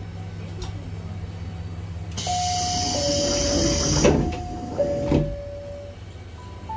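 Diesel railcar idling with a steady low hum; about two seconds in the doors close with a hiss of air, a two-note falling door chime sounding twice and two short thuds.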